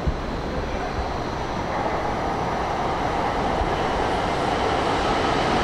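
N700S shinkansen train running in towards the platform: a steady rushing of wheels and running gear that slowly grows louder as it approaches.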